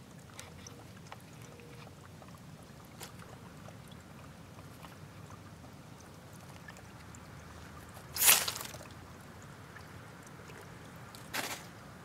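Dry leaf litter rustling as a chipmunk scurries at its burrow entrance: one loud, brief rustle about eight seconds in and a weaker one near the end, over a steady low background rumble.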